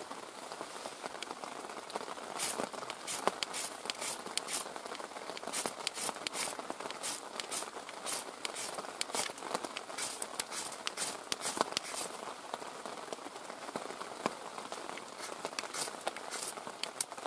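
Ferro rod held against a feather stick and scraped with a knife, a string of short, sharp rasps as it throws sparks into the damp shavings to light them.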